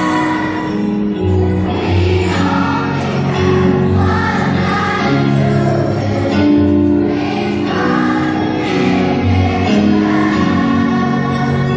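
Children's choir singing with an accompaniment backing track that has a steady bass line.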